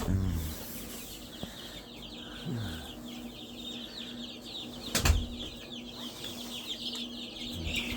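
Dozens of newly hatched chicks peeping continuously in a brooder, a dense chorus of short high cheeps. A steady low hum runs underneath, and a sharp knock sounds about five seconds in.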